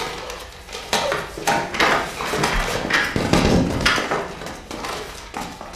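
Clatter of people getting up from a conference table: chairs shifting, papers and cups being gathered, a run of irregular knocks and thuds with rustling between them.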